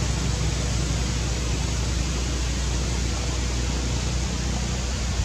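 Steady outdoor background noise: an even hiss over a constant low rumble, with no monkey calls.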